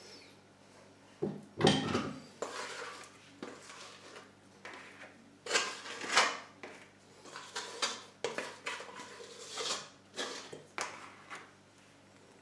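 Sourdough being emptied from a stainless steel mixing bowl into a plastic bowl of dough: irregular clatters and scrapes of the metal bowl against the plastic one, with quiet gaps between them.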